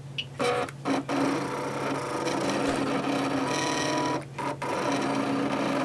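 Cricut electronic die-cutting machine cutting: its motors whir steadily as the blade carriage and cutting mat move. The running breaks off in a few short pauses, about a second in and after about four seconds.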